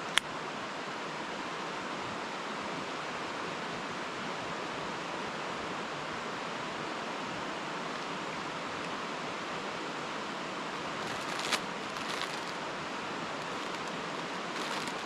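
Steady rush of running stream water. A sharp click comes just after the start and another about eleven and a half seconds in.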